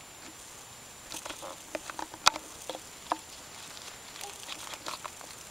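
Dry leaf litter and twigs crackling in scattered small ticks and snaps, the sharpest about two seconds in.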